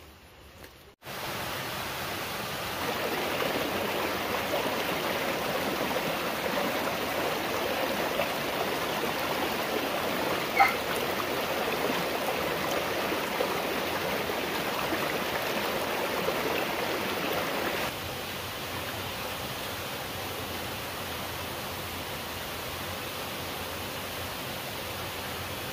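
Running water, a steady rush like a stream, starting about a second in, with a single sharp click about ten seconds in.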